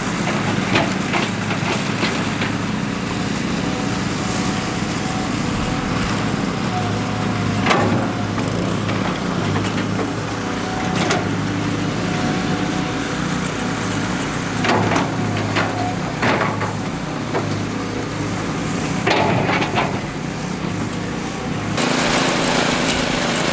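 Small engine of a concrete power trowel running steadily, with scattered sharp knocks and clicks over it. The engine note changes abruptly near the end.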